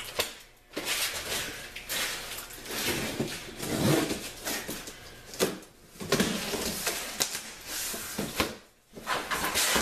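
Cardboard box being worked off an air compressor: irregular scraping and rubbing of cardboard with occasional knocks, pausing briefly twice.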